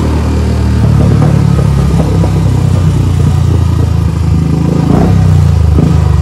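Motorcycle engine running steadily while being ridden, with wind noise on the microphone.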